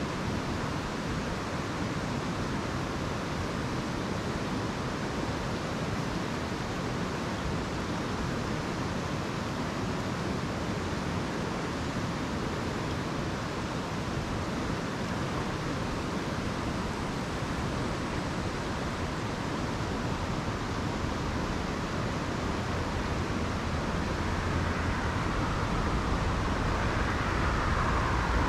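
Steady rushing of a mountain stream, a continuous even noise that grows louder toward the end.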